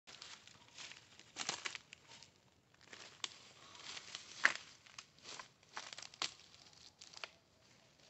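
Footsteps rustling and crunching through dry grass, stalks and fallen leaves, in uneven steps with a sharper crackle now and then.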